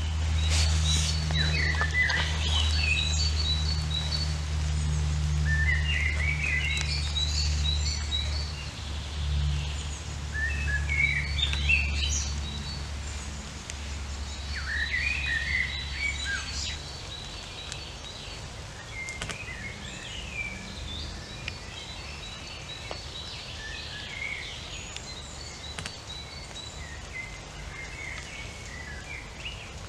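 Small birds chirping and calling on and off, over a steady low rumble that fades out about two-thirds of the way through.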